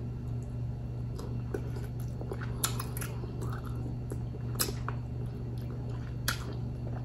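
Chewing and wet lip-smacking as king crab leg meat is eaten, with a few sharp wet mouth clicks, the loudest about two and a half, three, four and a half and six seconds in.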